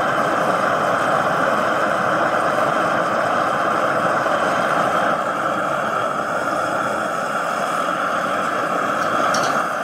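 Propane burner of an outdoor turkey fryer running under a pot of peanut oil, a loud, steady rushing of the gas flame as the oil heats toward frying temperature.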